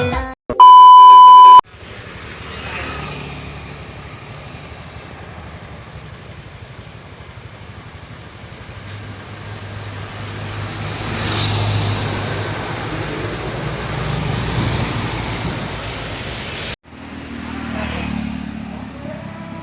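A loud electronic beep lasting about a second near the start, then the steady noise of buses passing on a road, with a low engine hum that swells and fades around the middle. The sound cuts off abruptly near the end and the traffic noise resumes.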